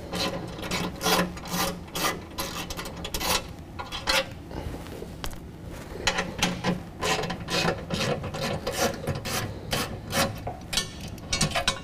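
Hand ratchet wrench with a socket clicking in short, uneven runs as 15 mm bolts are loosened and backed out, with metal scraping and rubbing between the runs.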